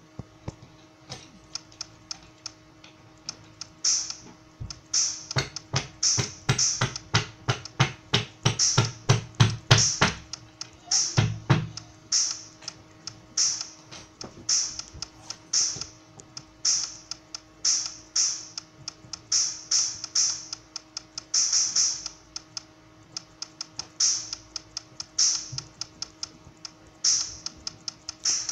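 Drum sounds from a phone drum-kit app played by tapping: a quick, irregular run of snare, tom and cymbal hits, with a stretch of deeper kick or floor-tom hits in the first half. A faint steady hum lies underneath.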